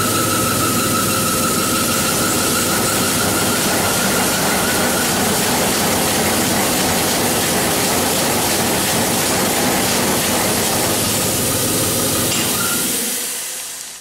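Pneumatic weaving loom, Russian-made in 1961, running: a loud, steady mechanical din with a low hum, fading away near the end.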